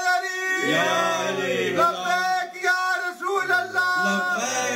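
Men chanting a devotional song through a microphone. A lead voice holds long notes while other voices overlap with it.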